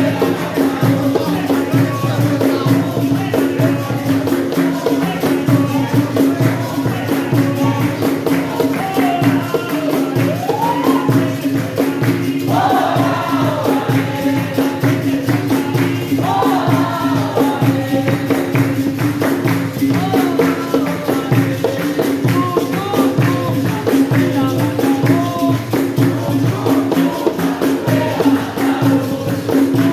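Capoeira roda music: berimbau and pandeiro keep a steady rhythm under a constant low twang, with voices singing over it, most clearly in the middle stretch.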